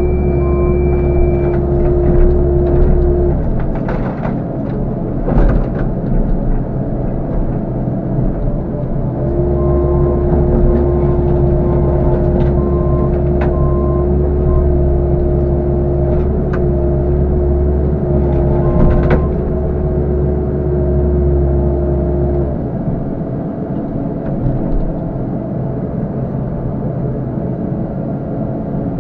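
CAT 308 excavator's diesel engine running, with a steady whine and heavy rumble under load for the first few seconds and again from about nine to twenty-two seconds as the boom and grapple bucket work. A few short knocks from the grapple and debris come in between.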